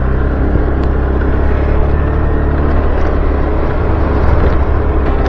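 A vehicle engine running steadily with a low hum and road noise.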